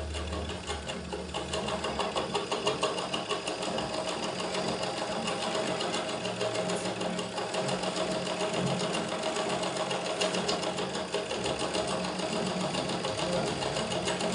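Belt-driven overlock (interlock) sewing machine running fast and steady, overcasting the raw edge of a handkerchief with a rapid, even clatter. It gets louder over the first couple of seconds as it comes up to speed.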